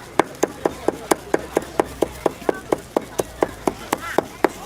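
Knife chopping quickly and steadily on a wooden cutting board, about four to five strikes a second.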